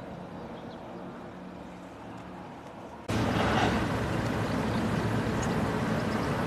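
Steady outdoor background noise with a faint low hum. About three seconds in it jumps abruptly much louder and hissier, as the sound switches to another recording.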